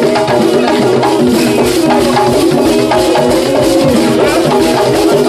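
Live traditional West African dance music: hand drums and other percussion in a dense, steady rhythm, with a melody running over it.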